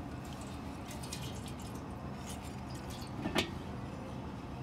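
Fuel dripping from a John Deere 5405's fuel filter into an iron pan below as the filter bowl is taken off, with light clinks and a sharper knock about three seconds in.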